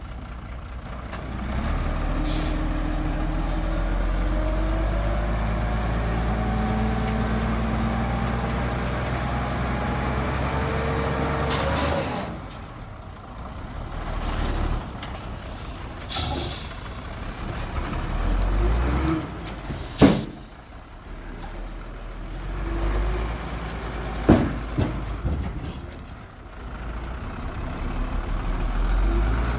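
Heavy diesel engine running hard under load, its pitch climbing steadily for about twelve seconds, then dropping back to a lower, uneven running. A few short sharp sounds cut through the engine, the loudest about two-thirds of the way through.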